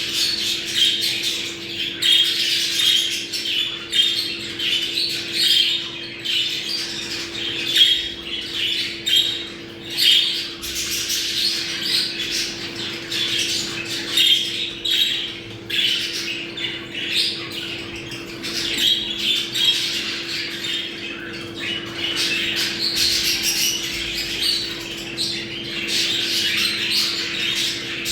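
Budgerigars chattering and warbling without a break, with squawks and chirps mixed in: the busy flock chatter of budgies in breeding condition. A steady low hum runs underneath.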